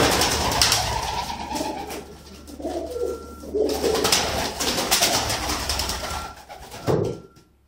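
Racing pigeons cooing in a small loft over a steady rustling noise; the sound drops off sharply just before the end.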